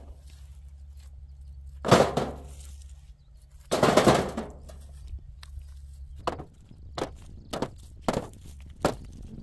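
Large stones being dropped: two heavy thuds about two seconds apart, then a run of lighter, irregular knocks.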